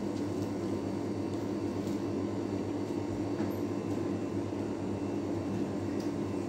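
Steady low machine hum, like a fan or appliance motor running in a kitchen, with a few faint ticks and rustles from dry tobacco leaves being handled.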